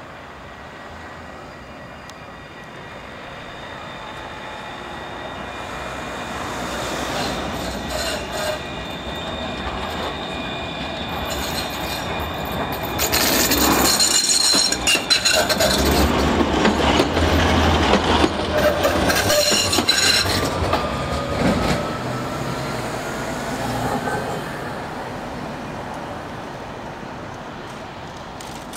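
Alstom RegioCitadis tram approaching, passing close by and moving away. Its steel wheels squeal on curved track and clack over rail joints, loudest as it goes past, and a rising whine comes near the end of the pass before the sound fades.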